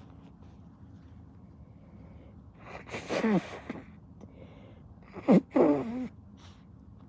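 A person sneezing twice, about two and a half seconds apart. Each sneeze is voiced, with a falling pitch, and the second is sharper and louder.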